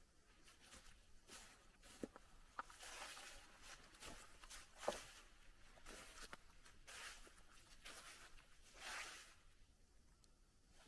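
Faint footsteps on a stone-paved path edged with gravel, about one step a second.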